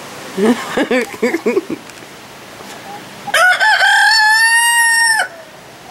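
Rooster crowing once, a loud crow of about two seconds, a little past the middle. Before it come a few short clucks from the chickens.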